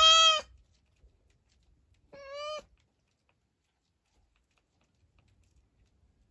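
Domestic cat meowing twice: a loud meow that ends just after the start, then a shorter, quieter meow about two seconds in.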